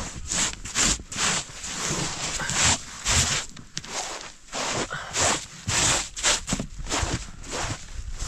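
Footsteps in deep snow, a steady walking rhythm of about one and a half steps a second, each step a short crunch.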